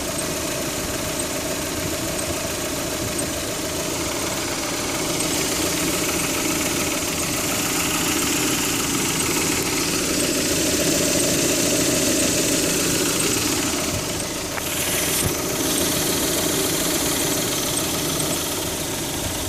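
Car engine idling cold, with a faint intermittent squeak from the belt-driven accessories. The alternator and tensioner pulleys have been ruled out, and the owner wonders whether it is the water pump.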